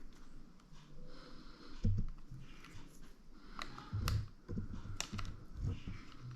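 Light plastic-and-metal clicks and soft knocks of handling inside an open mid-2012 MacBook Pro as the battery connector is worked loose. There are a few irregular clicks, the loudest about two and four seconds in.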